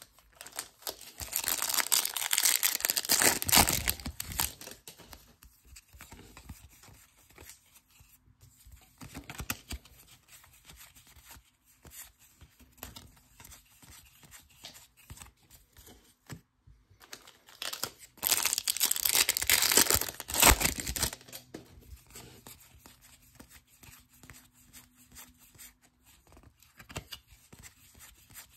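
Baseball card packaging torn open by hand: two loud stretches of tearing and crinkling, about a second in and again about 18 seconds in, with quieter rustling and card handling between.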